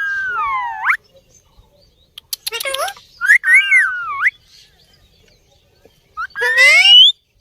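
Parrot giving loud calls that glide in pitch: one falls then rises, a pair of calls comes around the middle, and a last one rises steeply near the end.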